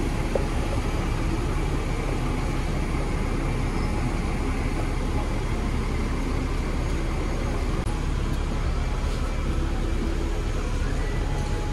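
Double-decker electric tram running steadily along its rails, a low even rumble heard from on board the upper deck.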